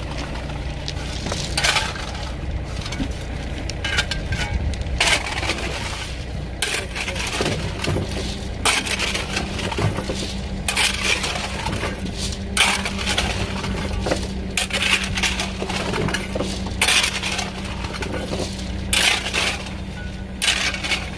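Gravel being shovelled: a scrape and clatter of stones every second or two, over a steady engine hum.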